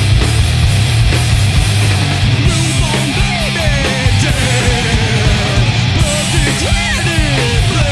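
Loud heavy rock band recording: distorted electric guitar, bass and drums playing together. About two and a half seconds in, sliding notes that bend up and down come in over it.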